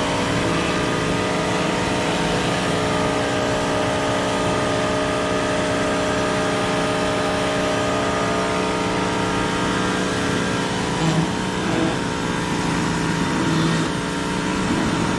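Electric pressure washer running: a steady motor-and-pump hum over the hiss of the water spray, with a few brief rises in level near the end.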